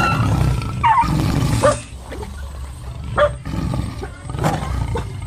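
Tiger roar sound effect: a deep, rumbling growl, loudest in the first two seconds and swelling again near the end. A few short high yelps from a dog cut over it.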